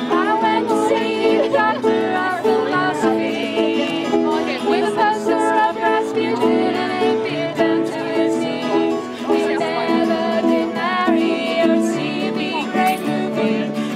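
Background music: an instrumental tune with a string melody over steady held chords.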